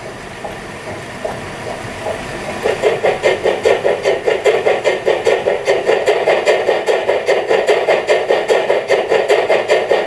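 Steam-locomotive sound module of a KISS garden-railway model of the Harz Brocken locomotive class 99.23, playing exhaust chuffs as the model runs: soft, uneven chuffs at first, then from about three seconds in a loud, even beat of several chuffs a second.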